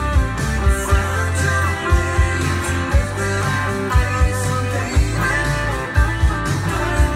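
A rock band playing an instrumental passage with no vocals: guitar over steady bass notes and a drum beat about once a second.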